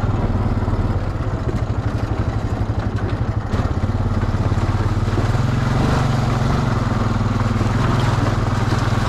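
Off-road bike engine running under the rider: it chugs unevenly at low throttle for a couple of seconds, then picks up and runs steadily again from about four seconds in.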